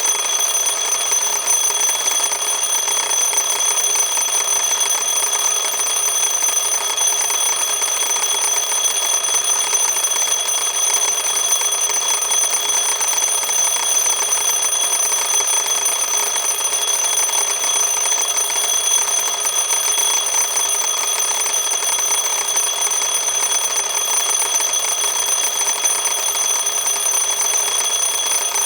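Analog sweep clock's alarm going off: a steady, high-pitched ringing that runs on without any breaks.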